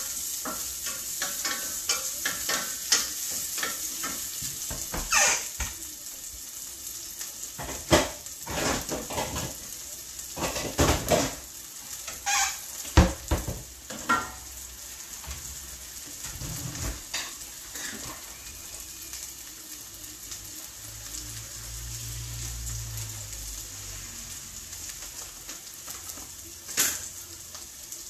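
Sliced ginger and onion sizzling in hot oil in a stainless steel pan, a steady hiss. Through the first half or so a wooden spatula stirs and knocks against the pan in a run of sharp clatters.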